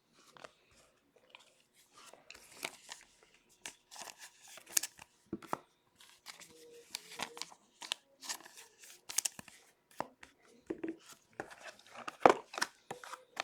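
Hockey trading card packs being torn open by hand, with irregular crinkling and crackling of the wrappers and short rasps of cards being handled, the loudest crackle near the end.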